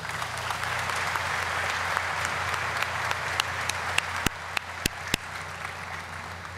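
Audience applauding, tapering off over the last couple of seconds, with a few sharp knocks about two-thirds of the way through.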